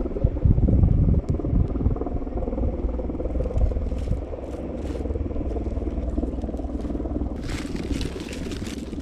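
Dry twigs scraping and crackling as a small campfire is handled and lit, over a low, uneven rumble of wind on the microphone. A short hissing rush comes near the end.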